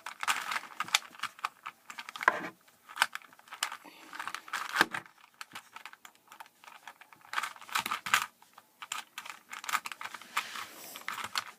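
Rubik's-brand 3x3 cube being turned by hand: quick, irregular plastic clicks and clacks of the layers in bursts, with a short lull midway.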